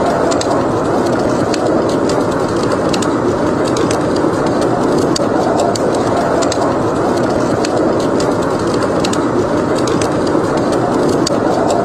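Fireplace fire crackling with scattered small sharp pops, over a steady, unbroken wash of blizzard wind.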